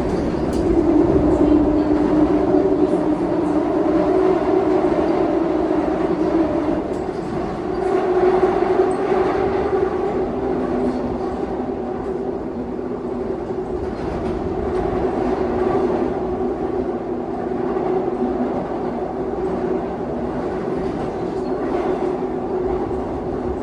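Seoul Subway Line 2 train running between stations: a steady rumble and hum with light clicking of the wheels over the rails.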